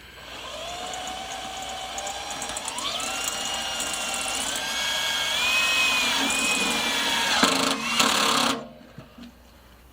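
Electric screw gun running under load as it drives a screw into the smoker box's sheet-metal side. Its whine rises in pitch in steps over about eight seconds, with a few clicks near the end, then stops suddenly.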